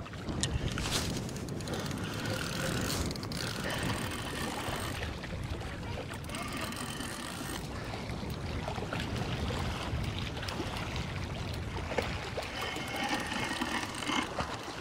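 Spinning reel being cranked while a hooked lake trout is played in, with faint whirring streaks from the reel coming and going, over a steady rumble of wind on the microphone.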